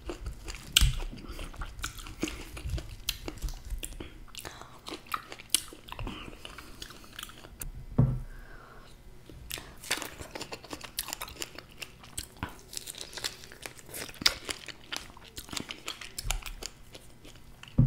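Close-miked chewing, with wet mouth clicks and smacks, as someone eats fresh fruit. There is one louder low thump about eight seconds in.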